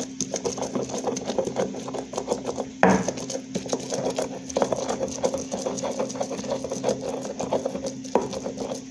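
Stone pestle (tejolote) grinding and scraping roasted serrano chiles against the rough volcanic stone of a molcajete, a quick steady run of gritty strokes with one sharper knock about three seconds in.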